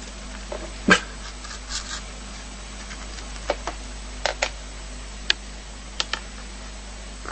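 An animal making a series of short, sharp sounds: one loud one about a second in, then several quieter ones over the next few seconds.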